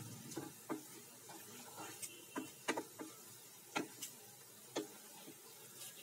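Wooden spatula knocking and scraping against the sides of a steel pot while stirring a frying onion-and-spice masala: about a dozen light, irregular clacks, a few louder ones in the middle.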